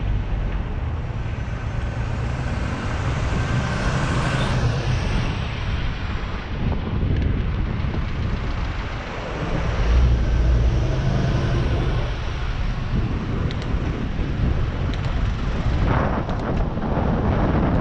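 Wind buffeting the microphone of a handlebar camera on a moving bicycle: a steady low rumble, with city traffic running alongside.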